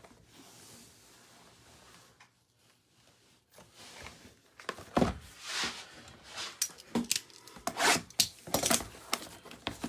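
Cardboard trading-card hobby boxes and their plastic wrapping being handled and torn open: irregular scratchy rubbing, scraping and tearing strokes with a few light knocks, starting about halfway in after a few nearly quiet seconds.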